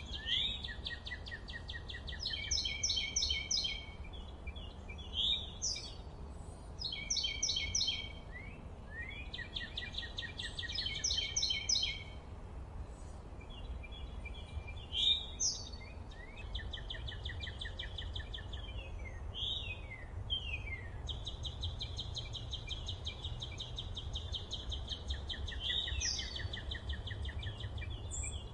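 Forest songbirds singing: a run of fast trilled phrases and quick rising whistles, one after another with short gaps, with a longer steady trill in the last third. A steady low rumble sits underneath.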